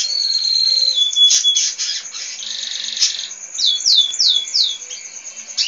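Canary singing: a held whistle that drops in pitch about a second in, then rapid trills, a buzzy rolled phrase, and a run of quick downward-sliding notes.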